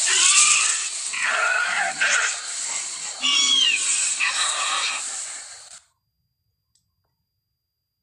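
Velociraptor sound-effect calls standing in for Deinonychus: a string of hissing, rasping calls with some falling glides in pitch, cutting off abruptly to silence about six seconds in.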